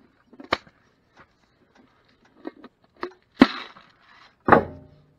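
A few separate sharp knocks and clunks of handling close to the microphone, the loudest two about three and a half and four and a half seconds in, the last with a brief low rumble after it.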